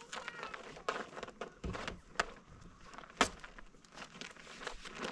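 Plastic sheeting crinkling and rustling as it is handled and pressed down on a cinder block wall, with irregular small taps and knocks; one sharper knock about three seconds in.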